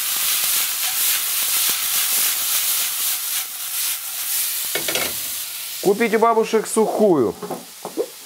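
Drained canned red beans and browned onions sizzling in oil in a stainless steel frying pan, tossed and stirred so they scrape and patter against the pan. The sizzle drops away about six seconds in, and a man's voice is heard briefly near the end.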